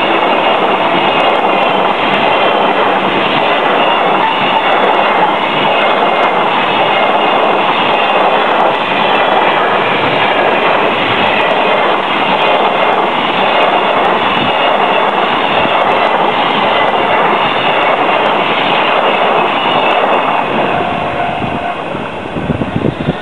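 Freight train of container wagons passing close by, a steady loud rush of wheel-on-rail noise. It fades near the end as the last wagon goes by.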